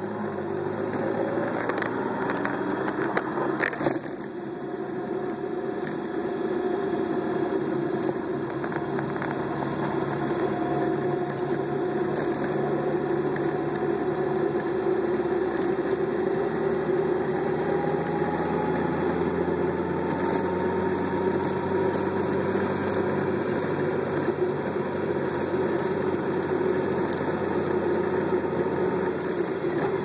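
Car driving along: steady engine, tyre and wind noise, the engine note slowly rising as it gathers speed, with a few sharp clicks in the first four seconds.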